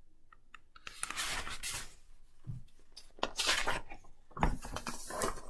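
Paper rustling as the pages of a large picture book are handled and turned, in three short bursts, with a soft low thud near the end.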